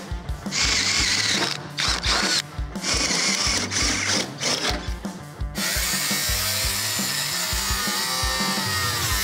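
A drill boring through the steel quarter panel in short whining bursts. About halfway through, a cut-off wheel starts slicing the sheet metal and runs steadily. Background music with a steady beat plays throughout.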